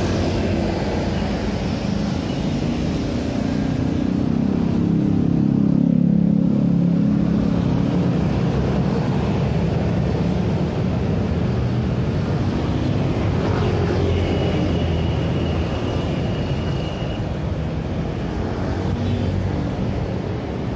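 Busy city street traffic: a steady stream of motor scooters and cars passing close by, engines and tyres rising and falling, loudest about six seconds in.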